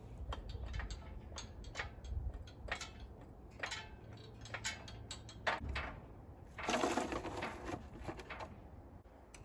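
Scattered knocks, clicks and clanks of a cherry picker engine hoist and the wooden boards under its wheels being handled while it carries an engine, with a longer scrape about seven seconds in.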